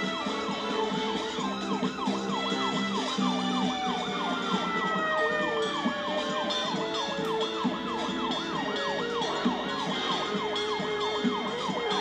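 Police siren in a fast yelp, its pitch rising and falling about three times a second, with longer tones gliding slowly downward alongside it.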